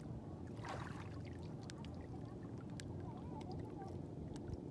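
Shallow seawater lapping and trickling, with a brief splash-like rush just under a second in and small scattered ticks, over a low steady rumble.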